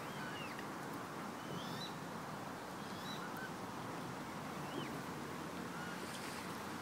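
Outdoor ambience with a steady background hiss and a few short, scattered bird calls.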